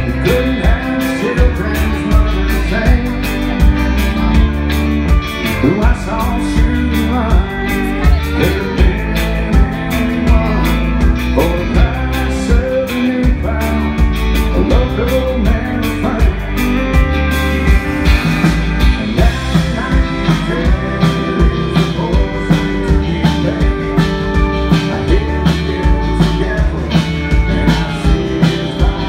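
Live country-rock band playing: electric guitar, bass guitar, drums and pedal steel guitar over a steady beat, with bending guitar notes.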